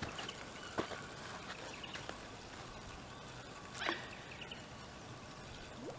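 A hooked carp splashing once at the water's surface about four seconds in, a short wet slap, over quiet background with a faint click near the start.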